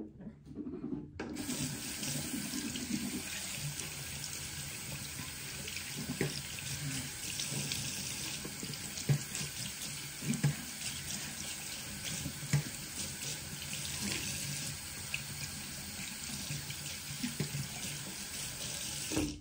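Bathroom sink tap turned on about a second in and left running into the basin, with occasional splashes and knocks, then turned off just before the end.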